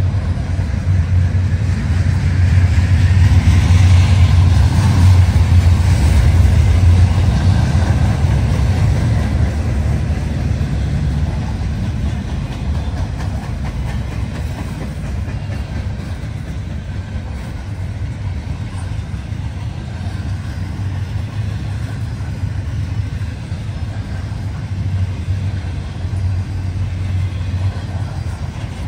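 Freight train cars rolling past, a steady low rumble of steel wheels on the rails, louder for the first several seconds and then easing to an even level.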